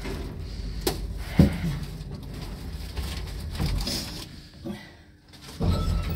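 Elszyk passenger lift car travelling with a steady low hum, a sharp click and a thump in the first couple of seconds. The hum fades out about five seconds in as the car stops, and a louder rumble starts just after, as the door mechanism begins to move.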